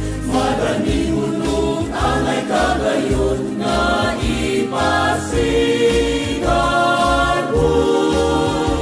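Choir singing a Cebuano-language hymn to Cebu province, with long held phrases over instrumental accompaniment.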